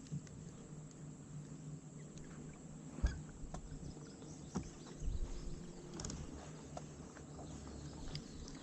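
Faint outdoor ambience: a low steady hum with scattered small clicks and knocks, the sharpest about three seconds in.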